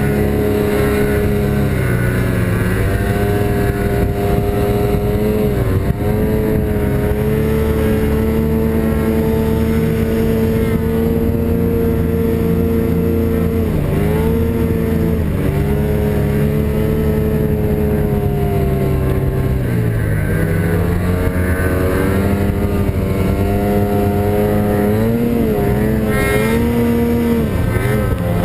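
Snowmobile engine running at high, steady revs. The pitch dips briefly and climbs back several times as the throttle eases off and opens again.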